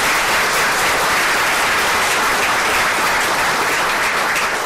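Audience applauding, steady and full, thinning out near the end.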